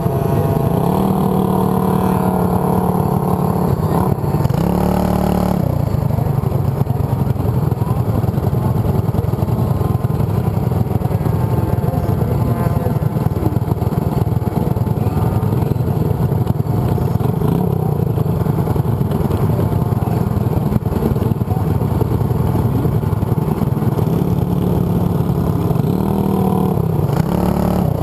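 Racing kart engines idling, a steady drone, with short revs that raise the pitch near the start and again near the end.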